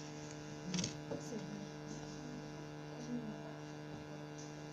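Steady low electrical mains hum, with a brief sharp noise about a second in.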